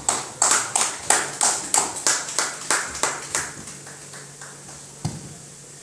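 Sparse applause after a poem: hand claps about three a second, dying away after three or four seconds. A single knock follows near the end.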